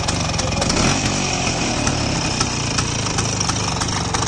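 Scooter engine of a homemade scooter-and-cargo-trolley vehicle idling steadily just after starting.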